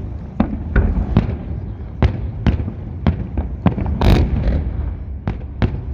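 Fireworks salute: an irregular run of about a dozen sharp bangs over a steady low rumble. About four seconds in comes one louder burst that carries a brief crackle.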